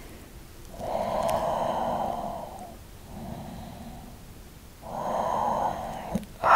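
A man's slow, deep breathing while he holds a yoga stretch: three long breaths, the first and last louder than the middle one.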